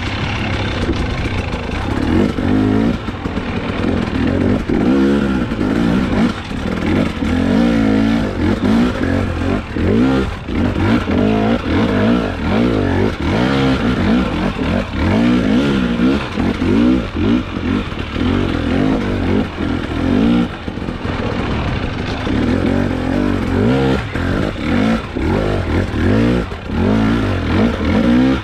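Husqvarna enduro dirt bike engine revving up and down again and again as the throttle is opened and closed over rocks and roots, its pitch rising and falling about once a second.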